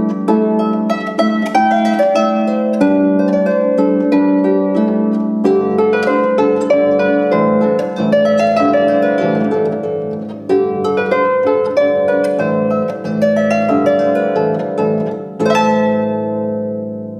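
Harp playing a lively, rhythmic folk-dance tune in quick plucked notes over sustained low notes, fading out near the end.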